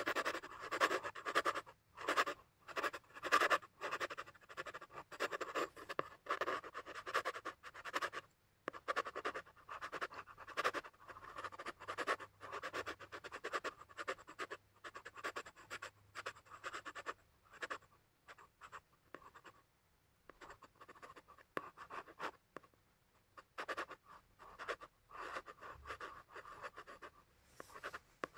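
Pencil scratching on paper in runs of quick back-and-forth strokes, as in sketching and shading, thinning to a few scattered strokes for several seconds about two-thirds of the way through.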